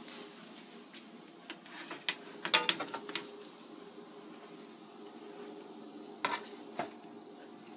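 A serving utensil clinking and scraping on a metal baking sheet as baked meatballs are lifted off and added to sauce in a crock pot: a few sharp clinks about two to three seconds in and again past six seconds, over a faint steady hiss.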